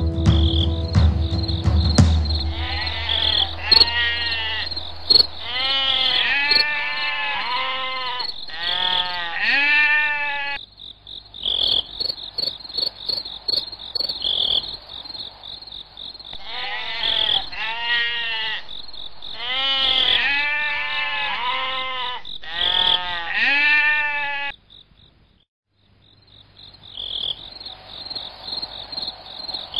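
Frogs calling in repeated runs of rising-and-falling croaks over a steady, pulsing chorus of crickets and other insects. The whole chorus drops out for about a second near the end before returning.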